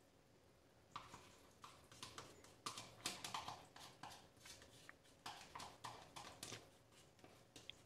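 Faint, irregular clicks and taps of a plastic cottage cheese tub being squeezed and knocked to empty it into a glass bowl, starting about a second in.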